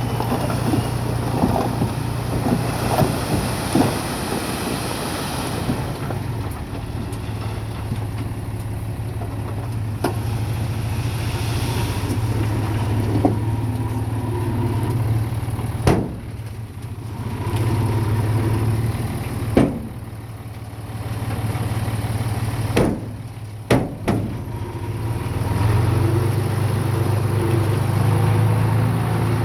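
Bulldozer's diesel engine running, its level easing off twice in the middle and building up again near the end as it works under load. Several sharp metallic clanks sound in the second half.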